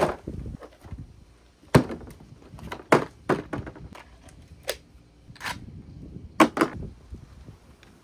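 A series of sharp knocks and clacks at irregular intervals, about nine in all, the loudest near two seconds in, three seconds in and six and a half seconds in, over a low rumbling noise.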